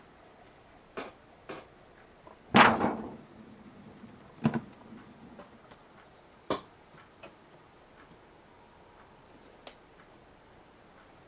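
A cat moving inside a wooden cabinet against a clear plastic sheet: scattered light taps and knocks, with one louder, longer plastic rustle about two and a half seconds in.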